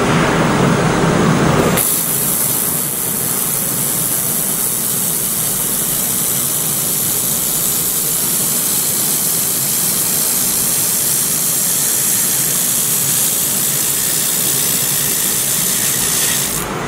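Handheld fiber laser welder running a weld along a thick metal joint: a loud, steady hiss that starts suddenly about two seconds in and cuts off near the end. The welder is laying extra passes to fill the seam flat.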